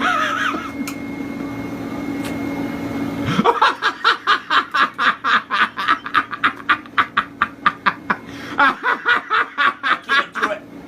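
A steady low hum for about the first three seconds. It then gives way to a person laughing hard in quick, rhythmic pulses, about five a second, for several seconds.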